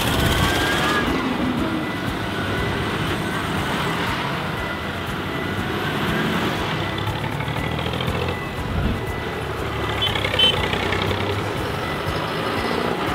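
Diesel engines of modern farm tractors, a Massey Ferguson, a Claas and a John Deere, driving past one after another at low speed. The sound is a continuous engine rumble that swells a little as each tractor passes.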